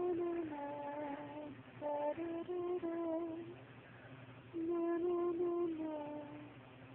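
A person humming a slow, wordless tune in three short phrases of held notes, with brief pauses between them.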